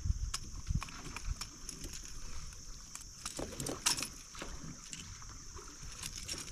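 Light clicks and knocks from handling gear in a kayak, over a steady high hiss.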